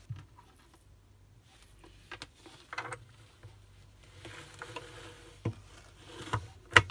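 Hard plastic toy parts being handled: scattered small clicks and knocks as a plastic plug is pushed into the socket of a toy doctor's kit console, with a sharper click near the end.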